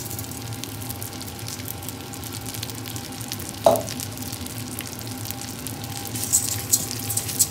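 Dry Thai rice toasting in hot garlic oil in a stainless-steel pot, crackling and sizzling as a wooden spoon stirs it. There is a single knock about halfway through, and the stirring gets louder near the end.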